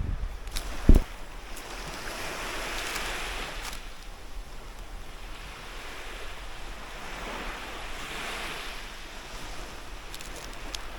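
Waves washing in on a shore: a steady rush that swells up twice and falls away. A single short thump about a second in.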